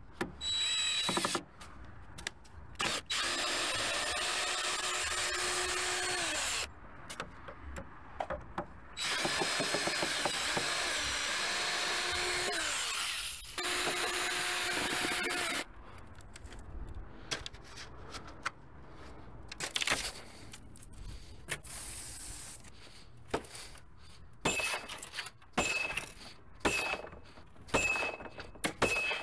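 Power drill running in two long runs of several seconds each, its whine rising as it speeds up and falling as it slows. Later come short blips of the drill and scattered clicks and knocks.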